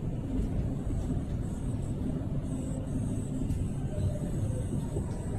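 Steady low rumbling rush of fast-flowing muddy floodwater pouring through a flooded street.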